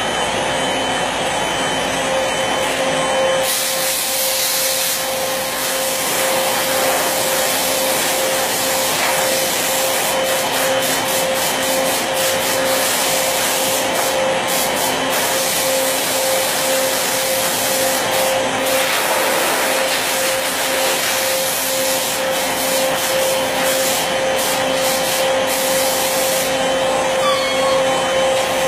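CNC router running and cutting wood: a steady high whine from the spindle over a loud hiss. The hiss gets louder a few seconds in and flickers through the middle.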